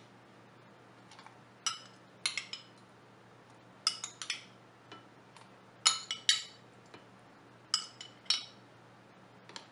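Metal spoon clinking against a glass bowl in short clusters of two or three ringing taps, about every second or two, as pineapple chunks are scooped out.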